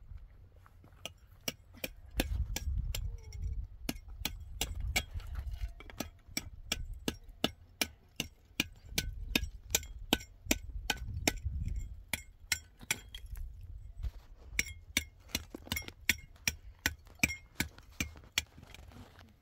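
A hammer knocking on a concrete block: a steady run of sharp, ringing strikes, about three a second, with a brief pause about two-thirds of the way through.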